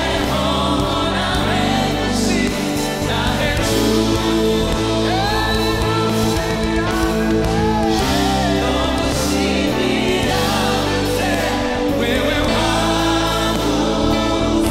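Live gospel song: a group of singers, lead and backing voices together, over a band with keyboard, bass and drums.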